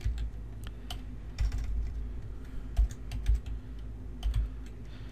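Computer keyboard being typed on: single keystrokes and short runs of clicks at an irregular, unhurried pace, over a steady low hum.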